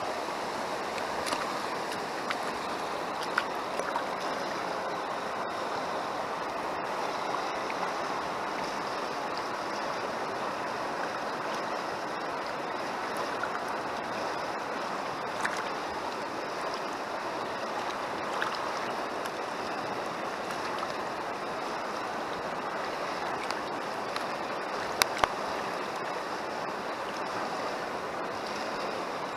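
Shallow mountain river water rushing steadily over stones, with a few short sharp clicks, the loudest two in quick succession near the end.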